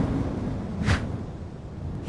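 Cartoon sound effect of wind rushing past a falling character: a steady low rumble, loudest at the start, with one short swish about a second in.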